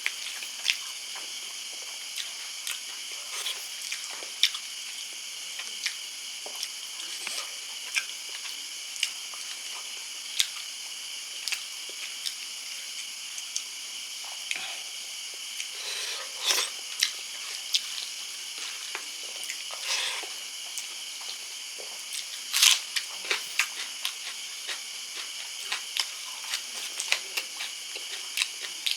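Close-miked chewing, with irregular wet mouth clicks and smacks, from a person eating spicy fish curry, over a steady high hiss.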